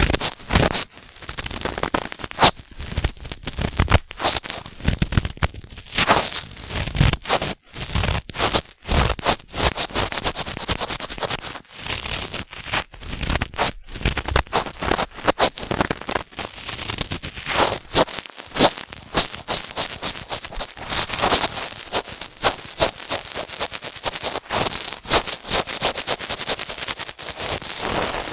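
Cotton swab rubbing and scraping inside the ear of a binaural microphone, close up: a steady run of dense, irregular crackling scratches.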